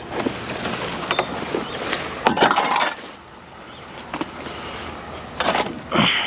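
Knocks and clatter of scrap items being handled and loaded: a run of sharp knocks in the first three seconds, then two louder ones near the end.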